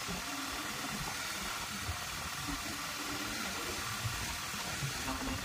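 Steady even hiss with a low, uneven rumble underneath.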